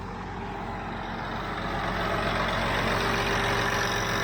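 1976 International Harvester 886's six-cylinder diesel engine running steadily under load while pulling a John Deere 348 square baler, heard from inside the cab. It grows louder about two seconds in.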